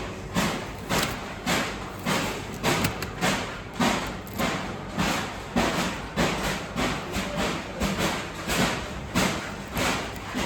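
A regular series of sharp thuds, about two a second, over a steady background.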